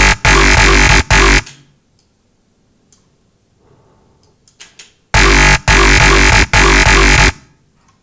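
Growly, distorted dubstep bass patch made in the Massive synthesizer, with a deep sub underneath, played in short choppy notes. One phrase ends about a second and a half in. After a pause of about three and a half seconds another phrase of three notes follows.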